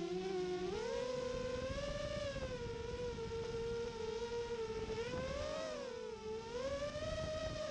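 FPV racing quadcopter's brushless motors spinning 5-inch DAL Cyclone 5050 props: a buzzing whine whose pitch jumps up about a second in, then rises and falls with the throttle.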